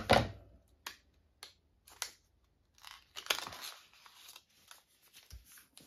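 A small wrapped gift packet being opened by hand: irregular rustling, crinkling and tearing, with a few sharp light clicks. The loudest rustles come at the start and about three seconds in.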